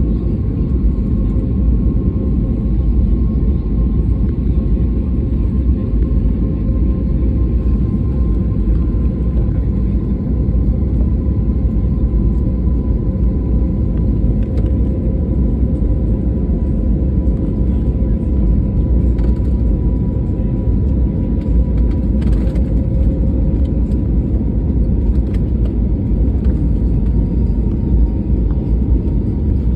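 Jet airliner cabin noise on approach: a steady, loud low rumble of engines and airflow, with a faint steady hum of two tones over it.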